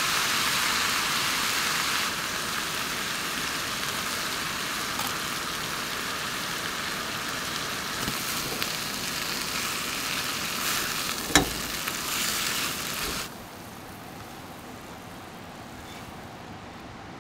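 Food sizzling steadily in a frying pan, with one sharp clack about two-thirds through. The sizzle cuts off suddenly about three-quarters through, leaving a faint hiss.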